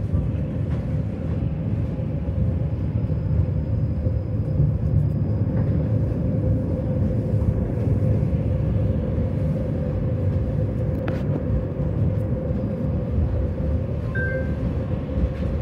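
A tram running on rails, heard from on board: a steady low rumble with a constant hum over it. There is a single sharp click about eleven seconds in, and a brief high tone near the end.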